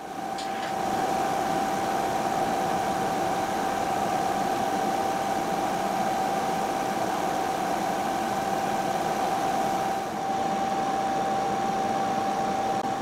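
Milling machine running, cutting a radius along the straight edges of a workpiece, with a steady high-pitched whine over an even machining noise.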